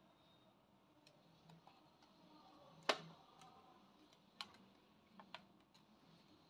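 Paper being handled as a strip is wrapped around a rolled paper tube: a few faint, sharp clicks and taps over near silence, the loudest about three seconds in, then one more and a quick pair about two seconds later.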